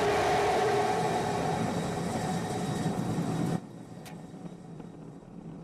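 Roar of Starship's Raptor rocket engines during the landing approach, a loud rushing noise with a steady hum running through it. It cuts off abruptly about three and a half seconds in, leaving a much quieter low rumble.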